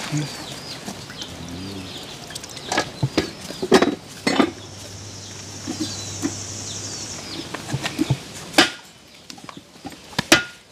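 Heavy cleaver chopping a whole fish on a wooden cutting board: several sharp chops at uneven intervals, the loudest about three quarters of the way through and near the end.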